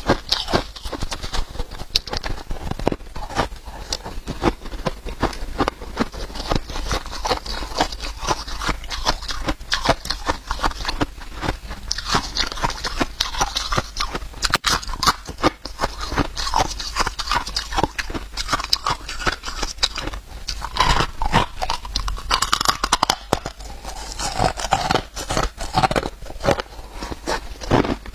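Crushed ice being bitten and chewed, a dense run of crisp crackling crunches right at a clip-on microphone.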